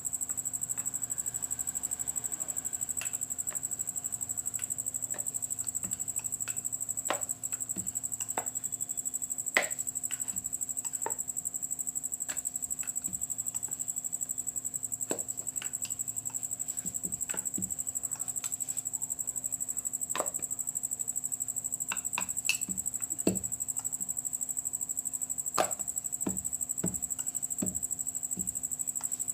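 Rolling pin rolling out paratha dough, with scattered light knocks and taps at irregular intervals, over a steady high-pitched whine.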